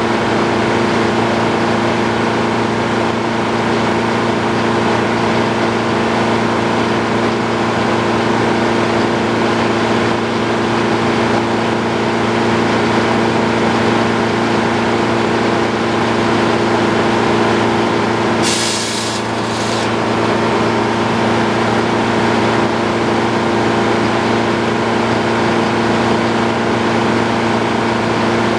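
Antique circular sawmill running steadily: an even mechanical hum with several constant tones. A short hiss in two parts comes about eighteen seconds in.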